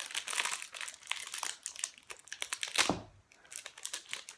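Small clear plastic packet crinkling as it is twisted and pulled open by hand, in quick irregular crackles, with one louder thump a little under three seconds in.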